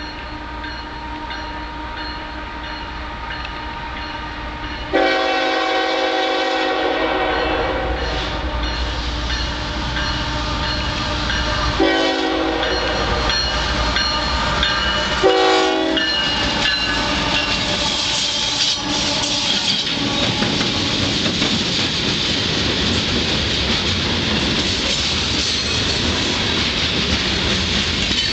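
CSX freight train led by three GE diesel locomotives (ES44AC, CW44AC and C40-8) approaching and passing, its engines growing louder. The lead locomotive's air horn sounds one long blast about five seconds in, then two shorter blasts around twelve and fifteen seconds in. The locomotives go by and the covered hopper cars follow with steady wheel clatter on the rails.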